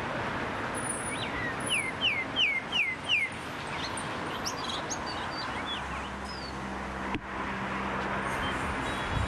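Street ambience with a steady wash of traffic noise. About a second and a half in, a bird gives a quick run of five or six falling chirps, followed by a few scattered short bird notes. From about six seconds, a low steady engine hum from a passing or waiting vehicle joins in.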